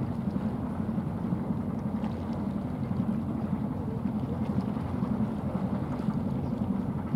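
Steady low rumble of a passing 498-ton coastal container ship: its engine drone and the wash of water along the hull, with some wind on the microphone.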